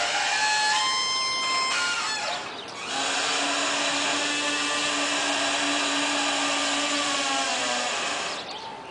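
A small motor or power tool running with a steady whine and hiss. It dips out briefly about two and a half seconds in, then runs steadily again and fades near the end.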